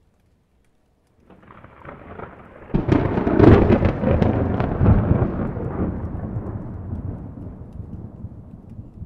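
Thunder: after a second of quiet, a low rumble builds, then a sudden sharp crack about three seconds in breaks into loud crackling, rolling thunder that slowly fades away.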